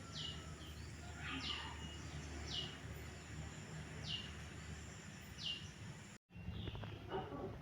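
A bird calling outdoors: a short chirp falling in pitch, repeated about once a second over steady background noise. The sound cuts out for a moment near the end.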